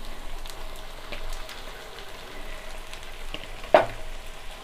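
Marinated chicken pieces sizzling in hot mustard oil in a kadhai with scattered small pops, as they are stirred with a wooden spatula. One sharp knock comes about three-quarters of the way through.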